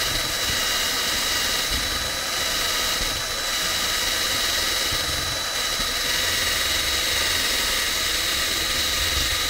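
Cordless drill running steadily, spinning a rubber nipple used as an eraser tip pressed against a rubber seal to rub off old double-sided adhesive tape. A constant motor whine with a high, even tone over a steady hiss.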